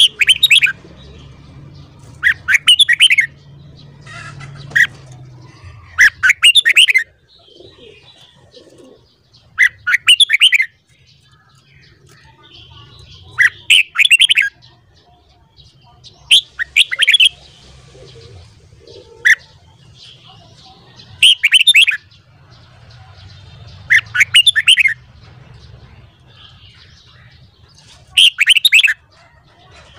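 Red-whiskered bulbul song: short, loud, bright whistled phrases repeated every few seconds, with faint low background noise between them.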